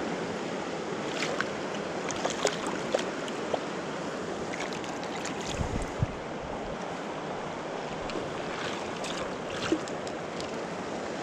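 Steady rush of a river flowing over a riffle, with a few faint light clicks and a low soft knock about six seconds in.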